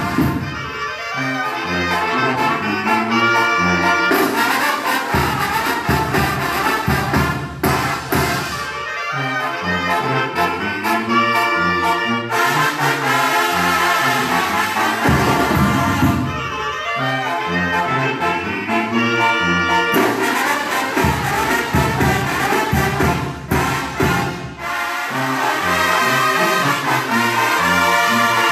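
Mexican brass banda playing live: trumpets and trombones carry the melody over a tuba's stepping bass line and a steady beat.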